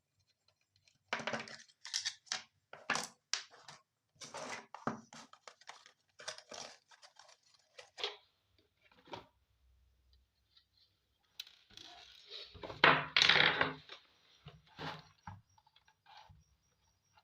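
Irregular clicks, scrapes and rustles of small hard objects being handled, with a louder stretch of scraping and rattling about thirteen seconds in.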